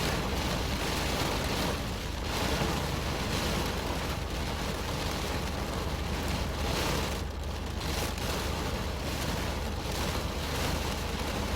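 Rain drumming on a car's roof and windows, heard from inside the cabin: a dense, steady patter with slow swells in strength.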